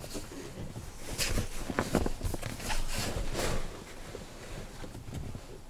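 Rustling and shuffling of bedding being handled inside a car: a pillow and comforter pushed about, with a few soft knocks. It is busiest for a couple of seconds starting about a second in, then eases off.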